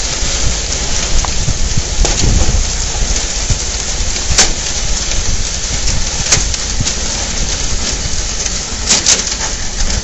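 Allis-Chalmers roto bale loader on a working WD45 tractor, its pickup and chute clattering steadily as it lifts a Roto bale. A few sharp knocks come through the running noise.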